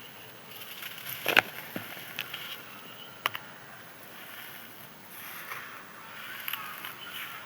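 Dry, crispy sand-cement crumbling and crunching, with scattered sharp cracks; the loudest comes about a second and a half in, another near the middle.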